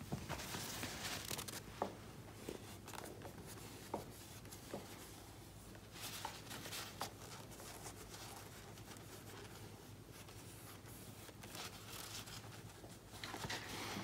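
Light handling noises of a plastic laser-printer toner cartridge being worked by hand: scattered soft clicks and knocks, with bouts of rubbing and rustling.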